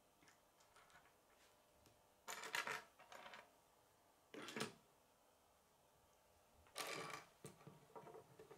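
Small plastic K'nex pieces clattering and clicking off-camera in short bursts: one about two seconds in, a brief one near the middle, and a longer run of clicks near the end.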